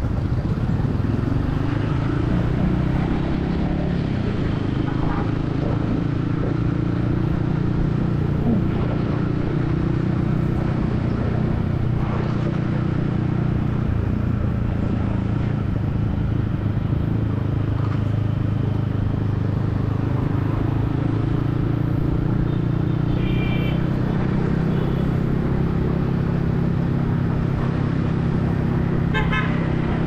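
Yamaha XSR155's single-cylinder engine running under a riding load in city traffic, its pitch rising and falling with the throttle, heard from the rider's helmet with wind and road rumble. A vehicle horn beeps in short toots about three quarters of the way through and again near the end.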